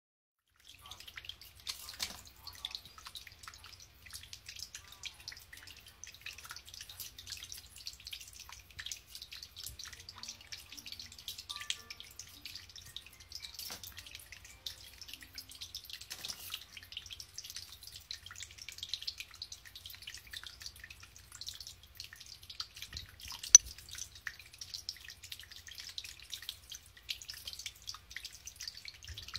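Water trickling and dripping, a steady fine crackle with a low hum underneath, and one sharp knock a little over 23 seconds in.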